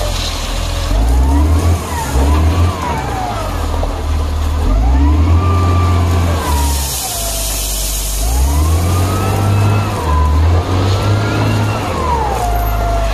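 Hindustan wheel loader's diesel engine revving up and down several times as it works the bucket, tipping a load of crushed stone into a tipper truck. About six seconds in, a rushing hiss of stone pouring from the bucket into the truck bed comes through.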